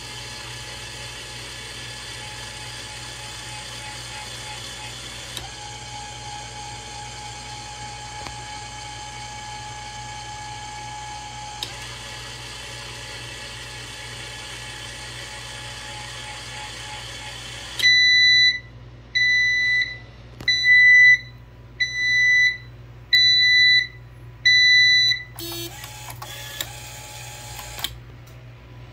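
Linear actuator motor running with a steady whir that shifts slightly twice, then cuts off. An electronic buzzer then sounds six loud, evenly spaced beeps about a second apart. A brief stretch of rattling noise follows near the end.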